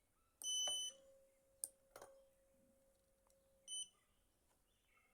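Fiber-optic fusion splicer beeping: a half-second electronic beep, then a couple of sharp clicks, then a second, shorter beep.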